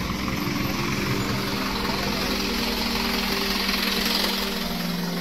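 Parked box delivery truck running close by: a steady engine hum with a constant low drone and no change in pitch.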